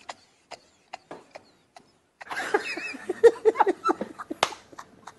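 A person laughing: scattered short breathy bursts at first, then a fuller run of laughter from about two seconds in.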